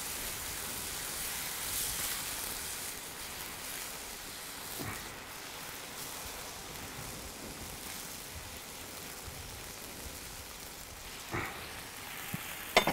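Madeira sizzling in a hot frying pan of caramelised vegetables as the pan is deglazed: a steady hiss, with a couple of light knocks near the end.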